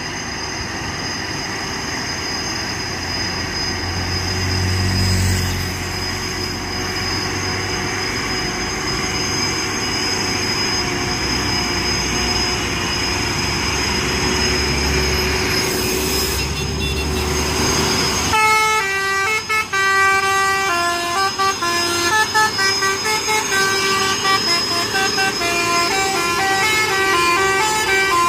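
Heavy truck engines labouring up the hill, with the rumble swelling twice as trucks pass. About eighteen seconds in, a telolet musical horn starts, playing a melody of stepped tones that jump up and down quickly.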